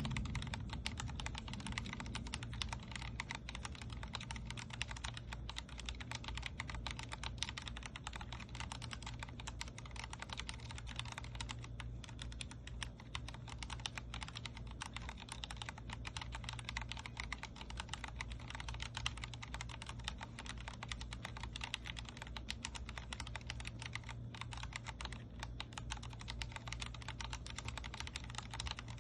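Continuous, fast typing on a Vortex Core 40% mechanical keyboard with linear Cherry MX Speed Silver switches: a dense, irregular stream of key clicks and keycap bottom-outs.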